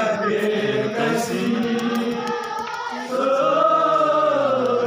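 A crowd of men chanting together in unison, a slow melody of long held notes, growing louder about three seconds in.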